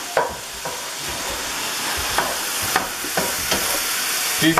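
Chicken pieces sizzling in a frying pan, with a spatula stirring and knocking against the pan several times.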